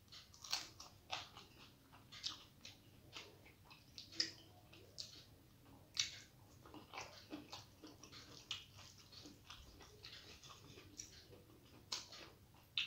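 Close-up sounds of a person chewing a mouthful of rice and curry eaten by hand: soft wet mouth smacks and clicks, several a second.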